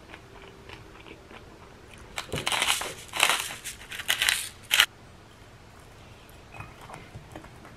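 Hand-twisted spice mill grinding: several quick rasping twists in a row, starting about two seconds in and stopping just before the five-second mark.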